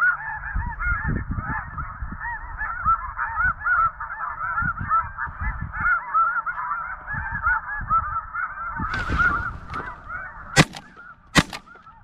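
A flock of snow geese calling, a dense chorus of high yelping notes, which fades about nine and a half seconds in. A brief rustle follows, then a shotgun fires twice, under a second apart, near the end.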